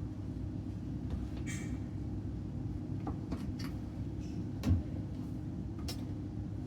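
Scattered clicks, taps and a brief scrape of a rubber washer door seal being worked onto the bent metal edge of the front panel, with one louder knock about two-thirds of the way through, over a steady low hum.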